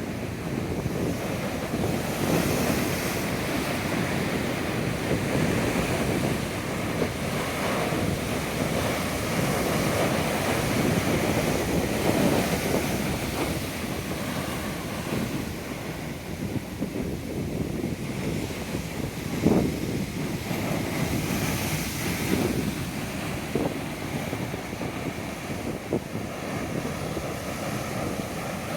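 Ocean surf: big waves breaking and washing in a continuous rushing noise that swells and eases, with wind buffeting the microphone.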